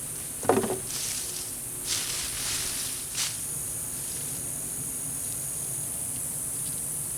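Hands digging and pulling through dry hay-and-leaf mulch to uncover potatoes. There is a dull thump about half a second in, then a few short rustling scrapes over the next three seconds before it goes still.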